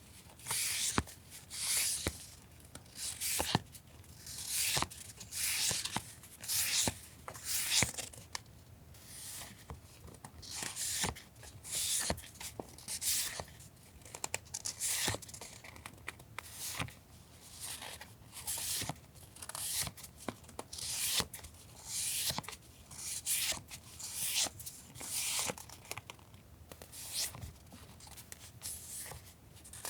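Paper stationery and plastic packaging being handled: a steady run of rustling swishes, roughly one a second, with small taps and ticks between them.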